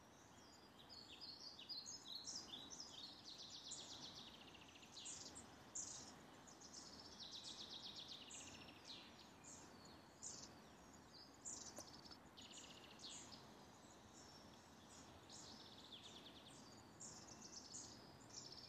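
Faint woodland birdsong: several birds singing quick chirps and trills, one phrase after another, over a soft steady hiss.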